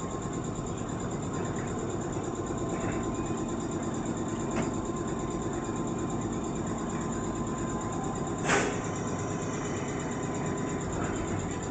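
Nankai 6300 series commuter train standing at the platform, its onboard equipment giving a steady mechanical hum with a faint steady tone. A small click comes about four and a half seconds in, and one short sharp burst of noise about eight and a half seconds in.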